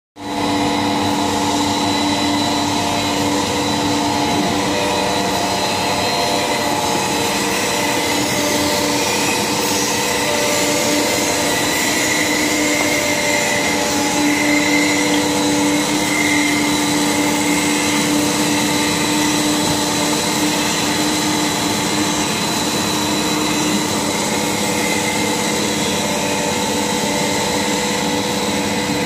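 PE prestressed corrugated pipe extrusion line running: a steady mechanical hum of several held tones over an even machine noise.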